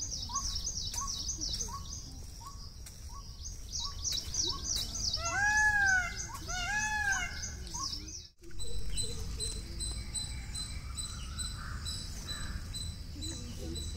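Birds calling outdoors: a rapid run of high falling chirps with short repeated notes under them, and two louder arched calls about halfway through. After an abrupt cut a little past halfway, a steady, evenly pulsed high trill carries on.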